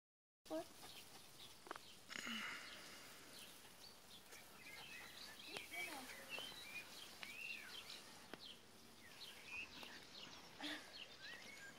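Faint garden ambience with many short bird chirps scattered throughout.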